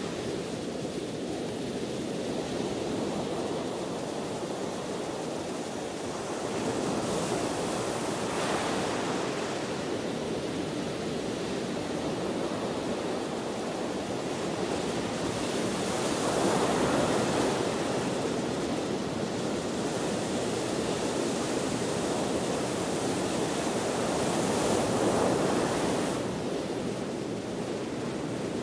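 Ocean waves breaking and washing on the shore in a steady wash, swelling louder as sets come in near the middle and again toward the end, with wind.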